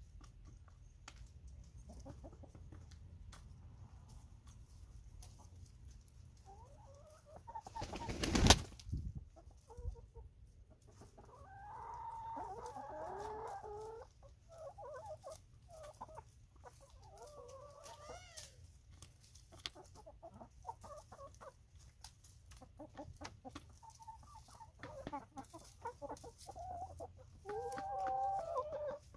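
A flock of hens clucking at intervals while feeding together, with many small taps throughout and one loud knock about eight seconds in.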